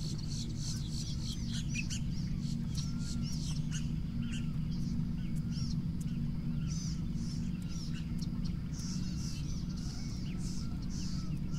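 Many birds chirping and calling in quick, short notes, some overlapping, over a steady low hum.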